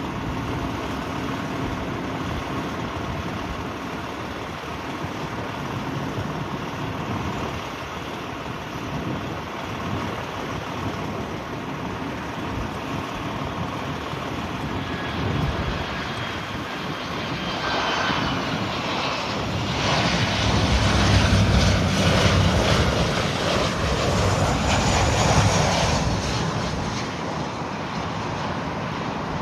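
Jet airliner's engines passing close by: a steady distant rumble that builds into a loud pass with a whine falling in pitch, loudest a little past the middle, then easing off.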